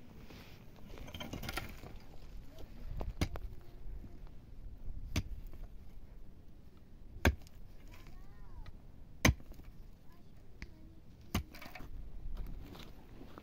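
Pickaxe striking dry, stony earth: about five single blows, roughly two seconds apart, with the third and fourth the loudest.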